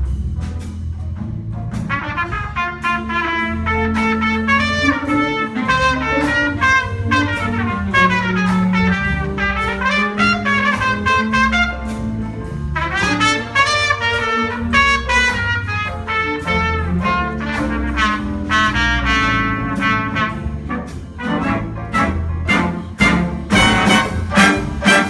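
Live jazz-style ensemble music with a brass section of trumpets and trombones playing sustained chords over a drum beat. The drum strikes come through more sharply near the end.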